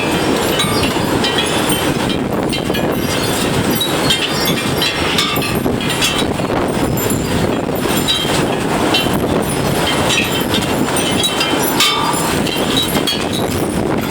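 Strong gusting wind in a steady loud rumble, buffeting the microphone, with many small clicks and rattles scattered through it.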